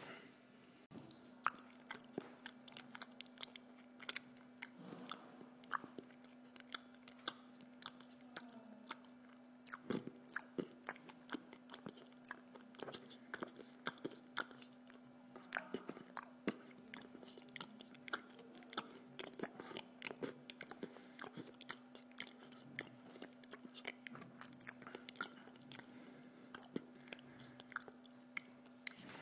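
A person chewing food close to the microphone: many small irregular clicks and crunches of biting and mastication, over a steady low hum.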